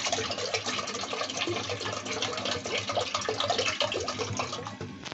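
Tap water running into an aluminium cooking pot as it fills, a steady splashing rush that fades near the end.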